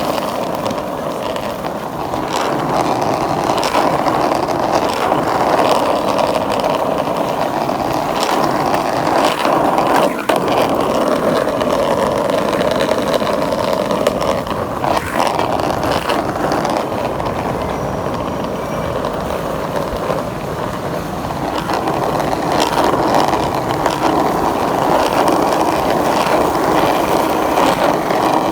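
Skateboard wheels rolling over pavement in a steady rumble, with a few sharp knocks of the board.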